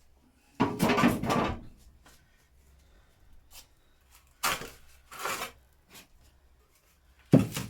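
Parts and tools being handled and set down during dismantling: a clatter about half a second in lasting about a second, two shorter knocks or scrapes around the middle, and a sharp knock near the end.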